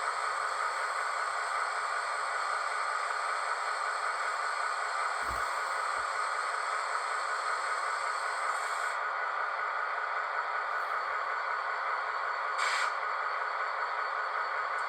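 Sound decoder of an HO-scale V/Line N class model locomotive playing a steady diesel engine sound through its small onboard speaker, thin and without bass. Two faint knocks come about five and six seconds in, and a short hiss near the end.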